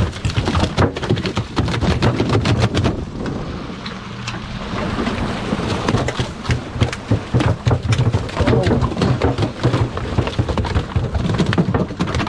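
A freshly landed tuna beating its tail in a rapid, drumming flurry against the boat's fish box and deck. The thrashing eases a little a few seconds in and then picks up again, and the tuna is violent.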